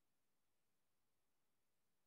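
Near silence: faint steady hiss of the recording.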